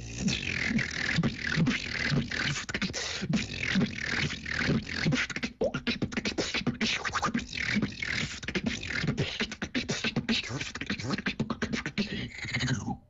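Female beatboxer performing a fast, rhythmic vocal-percussion routine into a microphone, a steady stream of short mouth-made hits with low kick-like pulses and hissy high sounds.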